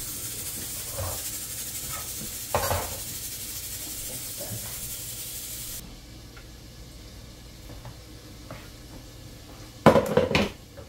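Steady hiss of pots steaming and cooking on a gas stove, with a few light knocks of a spoon on a pot, cutting off suddenly about halfway. Near the end comes a loud clatter of metal cookware as the pressure cooker's lid is handled.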